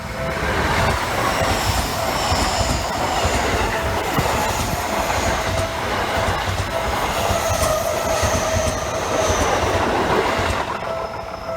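An electric commuter train on the Seibu Shinjuku Line passing through a level crossing for about ten seconds, its wheels running loudly on the rails with a high squeal that comes and goes, then cutting off near the end. The crossing's warning bell keeps ringing under it and is heard clearly again once the train has gone.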